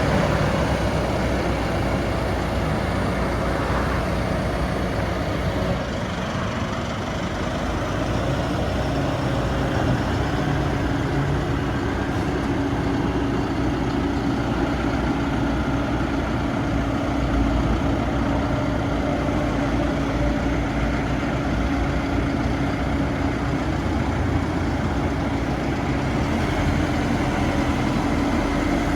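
Lonking 84C backhoe loader's 100 hp Perkins diesel engine running steadily. A steady tone joins the engine sound about ten seconds in.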